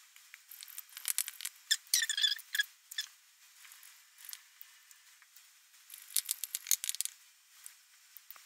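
Makeup sponge dabbing nail polish onto a phone case, with the case being handled: two bursts of quick light taps and small squeaks, about a second in and again near seven seconds.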